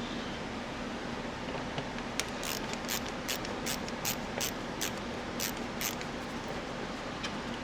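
Hand ratchet wrench working a bolt loose in short strokes: about ten quick clicking rasps, two or three a second, between about two and six seconds in, over a steady background hum.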